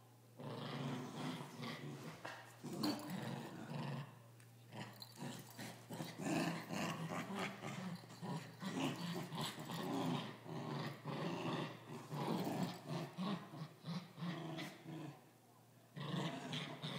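Coton de Tulear dogs growling in play while tugging a toy between them. The growls come in bouts, with short pauses about four seconds in and again near the end.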